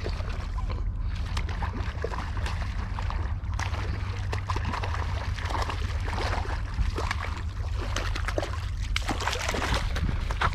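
Steady low wind rumble on the microphone, with water trickling and light splashing at the river's edge and scattered small clicks throughout.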